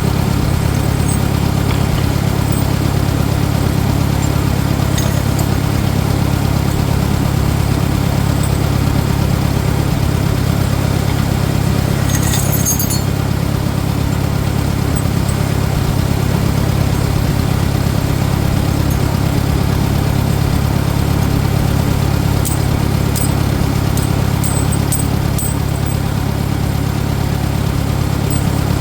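Farmall 400 tractor engine running steadily, with a few faint light clicks over it.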